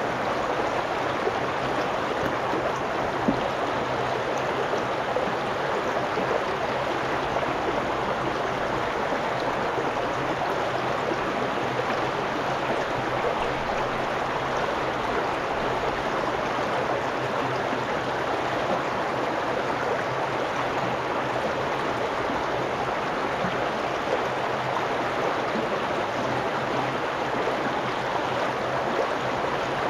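A shallow brook riffle rushing and splashing over rocks close to the microphone, a steady, unbroken rush of water.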